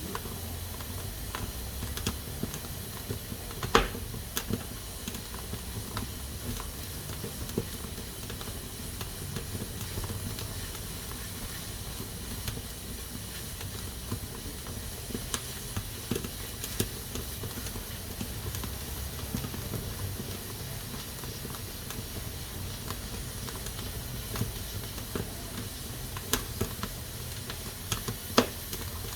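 Pressure cooker hissing steadily as steam escapes through its valve, with scattered sharp clicks, the loudest about four seconds in and again near the end.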